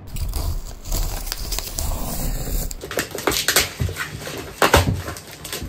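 Cardboard box being torn open by hand, packing tape and flaps pulled with low thumps, then crinkly wrapping rustled and crushed with many sharp crackles from about three seconds in.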